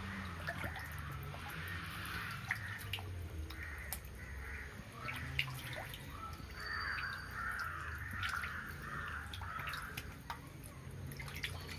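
Crows cawing again and again, with water dripping and splashing into a fish pond, over a low steady hum.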